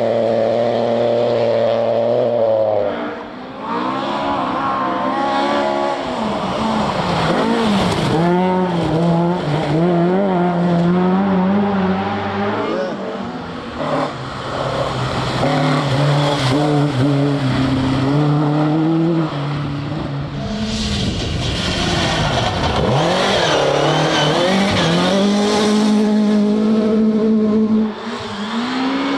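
Rally cars driven flat out one after another on a gravel stage, engines revving high and dropping sharply through gear changes and lifts. In the second half there is loud hiss from the tyres on the loose surface.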